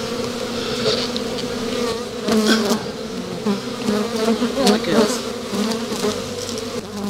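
Honeybees buzzing in numbers around an open Langstroth hive, a steady hum with single bees zipping close past the microphone, their pitch rising and falling. They are stirred up by the hive being opened without smoke. A few light knocks come as the wooden lid is set back in place.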